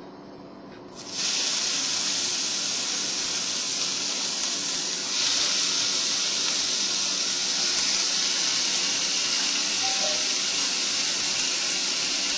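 Steak sizzling on a hot indoor grill: a steady hiss that starts suddenly about a second in and grows louder about five seconds in, as more meat hits the grill.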